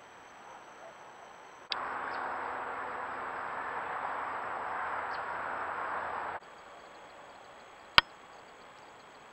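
Outdoor trail-camera ambience with insects chirping faintly at night. Between clips it switches to a louder, even rushing noise for about five seconds, then back to the insects. A single sharp click comes near the end.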